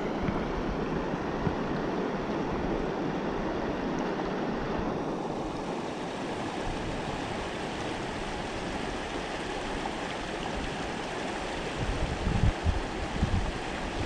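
Steady rush of a shallow river running over rocks, with a few low bumps near the end.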